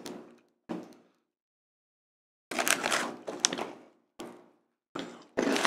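Foil-lined plastic snack bag crinkling in several short bursts as hands rummage in it for biscuits.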